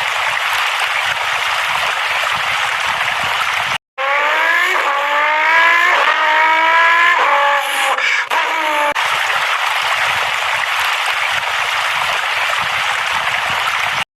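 Car sound effects: a steady rushing noise, then after a brief cut a car engine revving up through several gear changes, its pitch climbing and dropping back again and again. The rushing noise then returns.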